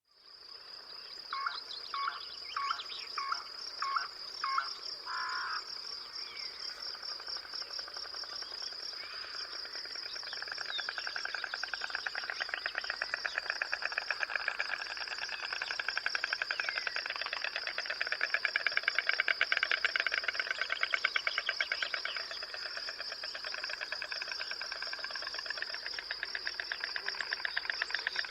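Pond wildlife chorus: a steady high-pitched insect trill throughout, six short calls in quick succession in the first five seconds, then a dense, rapidly pulsing chorus that swells and fades.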